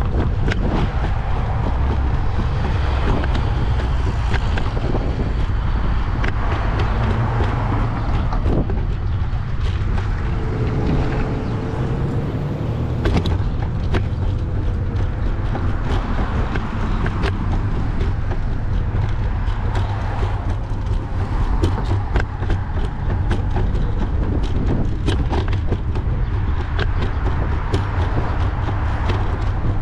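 Wind buffeting the microphone with the road noise of a bike rolling along pavement, and many small clicks and rattles from the bike over bumps.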